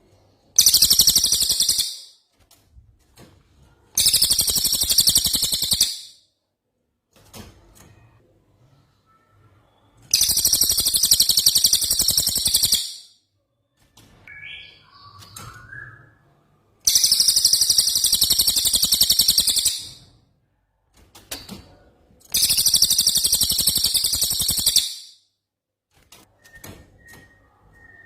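A songbird's rapid, very high-pitched rolling trill, sung in five bursts of about two to three seconds each with pauses between. Fainter short calls come in the gaps. This is a 'rol tembak' rolling-trill song used as a masteran to train cage songbirds.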